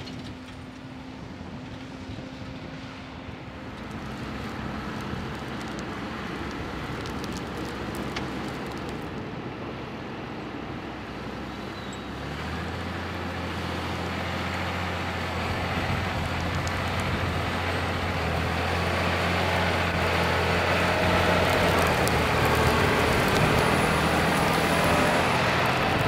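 Tractor diesel engines working under load. First the Fendt 718 Vario pulls a power harrow and drill, fainter. About twelve seconds in, the Massey Ferguson 6499 comes in pulling a five-furrow plough, its steady engine note growing louder as it comes closer.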